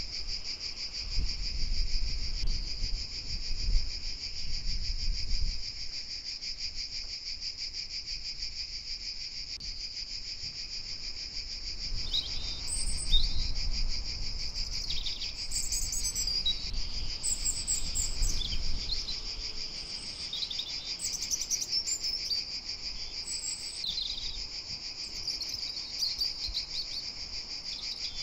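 A steady, high buzzing chorus of insects stridulating. From about halfway through, small birds add short chirps over it, and a low rumble swells and fades now and then.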